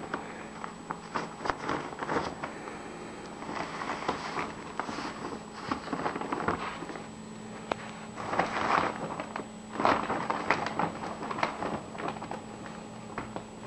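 Reusable recycled-plastic tote bag rustling and crinkling in irregular bursts as a cat shifts about inside it and the bag is handled, with scattered small clicks.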